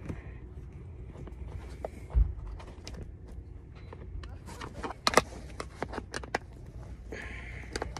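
Sharp clicks and taps of a screwdriver working the screws out of a plastic chalk line reel's case. The clicks come thickest from about five seconds in, with a dull thump about two seconds in and a low steady rumble underneath.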